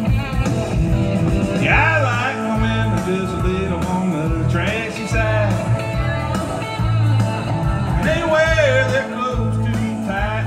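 A man singing country karaoke into a handheld microphone over a backing track through a PA, his voice coming in short sung phrases with gaps between lines while the backing track plays on.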